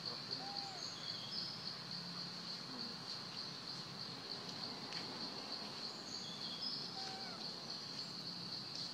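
A steady, unbroken high-pitched insect drone, with a few faint, short bird calls scattered through it.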